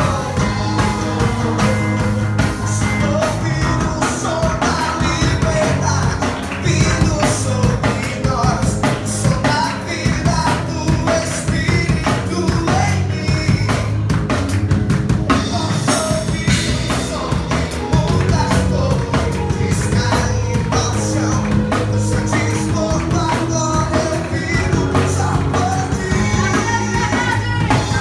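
Rock band music with singing: a drum kit keeping a steady beat under bass, guitars and a sung melody, played loud and without a break.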